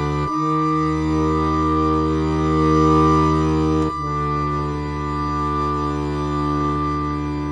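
Soundtrack music of long held chords, changing to a new chord about a third of a second in and again about four seconds in.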